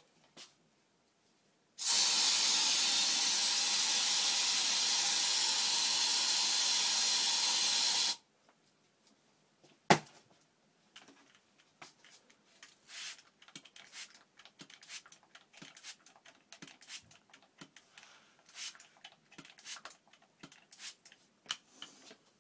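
Aerosol can of Raid insect spray sprayed in one continuous burst of about six seconds, a loud steady hiss. A sharp knock follows about two seconds later, then scattered faint ticks and crackles.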